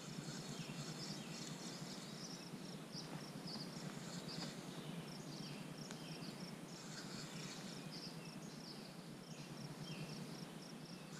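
Faint outdoor ambience: a steady low rush with many short, high-pitched chirps repeating irregularly throughout, and a few short falling notes among them.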